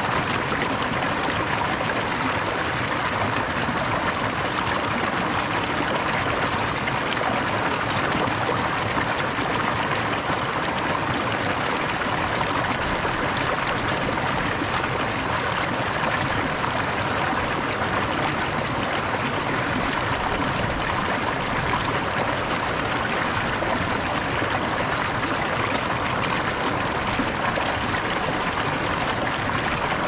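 The Merced River running steadily at Happy Isles: an even, unbroken rush of flowing water.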